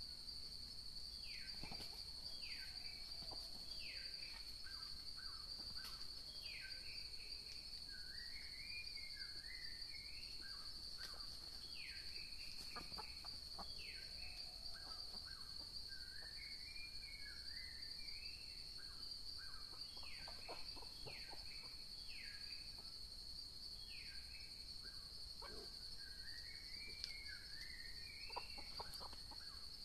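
Red junglefowl hens calling again and again: sharp falling notes, each followed by short lower clucks, mixed with rising-and-falling chirps. A steady high insect drone runs underneath.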